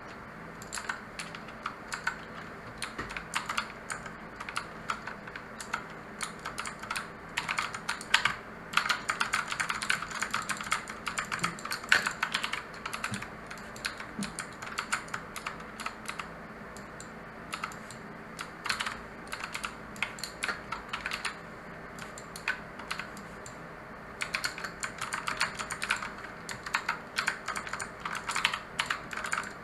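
Mechanical keyboard with clicky blue switches being typed on: fast runs of sharp key clicks, thinning out in the middle and picking up again near the end.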